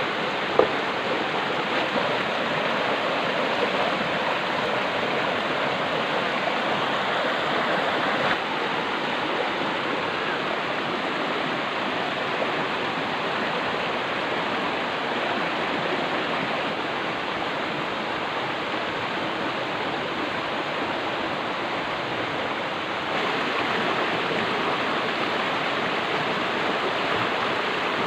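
Steady rushing of flowing river water, with one sharp knock about half a second in.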